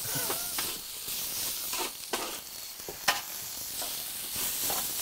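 Yakisoba noodles sizzling on a hot griddle plate over a charcoal kettle grill as they are stirred and turned with a spatula, with a few sharp clicks of the spatula against the plate.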